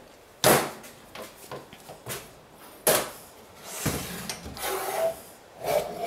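Hard plastic parts handled on a steel workbench: two sharp knocks, about half a second in and near three seconds, as the swirl-flap actuator is set down and the plastic intake manifold is moved, with light clicks and rubbing between.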